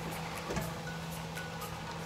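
Light background music with a mallet-like tune, and one knock of a utensil on the pan about half a second in.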